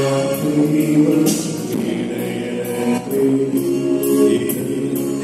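Choir singing with a Korg Pa arranger keyboard playing the accompaniment.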